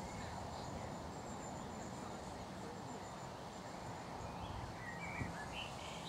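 Steady outdoor background noise with no close birdsong. A faint, thin, high steady tone runs through the first half, and a few faint distant bird chirps come about five seconds in.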